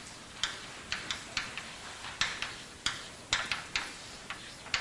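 Chalk tapping and scratching on a blackboard as words are written: a dozen or so short, sharp clicks at irregular spacing, about two or three a second.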